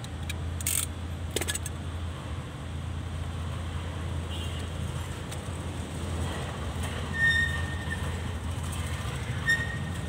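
Handling noise of car wiring and a wire stripper under a dashboard: a few sharp clicks early, then two short high squeaks, the second near the end, over a steady low hum.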